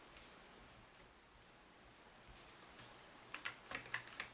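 Near silence, then from about three seconds in a quick run of sharp clicks and taps, about six in a second, from hands handling the opened clock radio's circuit board and plastic case.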